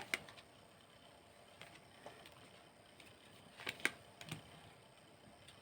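Tarot cards being handled and laid down: a few soft, scattered taps and clicks, the loudest a quick pair near the end, over a quiet room.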